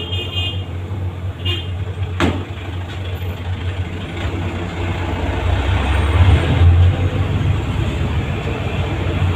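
Steady low rumble of a motor vehicle engine running nearby, growing louder past the middle, with one sharp click about two seconds in.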